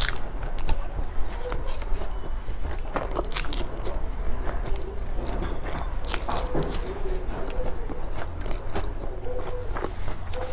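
Close-miked eating: biting and chewing food with irregular crunches and wet mouth clicks.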